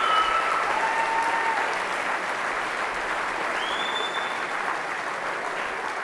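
Large arena crowd applauding steadily, with a few cheers heard above the clapping.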